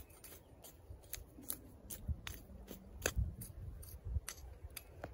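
Garden hoe chopping and scraping through loose, freshly dug soil to mix in wood ash: a run of irregular crunchy strikes, a few a second, with a few duller thuds about two, three and four seconds in.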